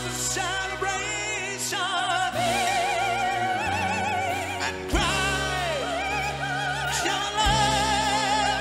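Live operatic-rock vocal duet, a female and a male singer holding long notes with wide vibrato, backed by a symphony orchestra and band. Heavy percussion hits land about halfway through and again a couple of seconds later.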